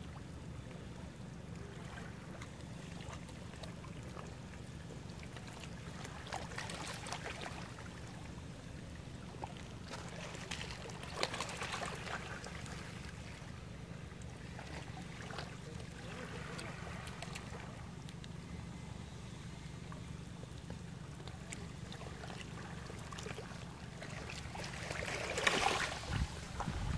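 Beach ambience: a steady low hum with several brief swells of hissing noise, the loudest near the end.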